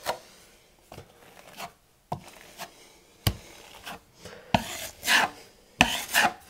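Steel taping knife scraping quick-set joint compound off the edge of a metal mud pan and spreading it on drywall: a run of short, irregular scrapes and clicks, about one or two a second.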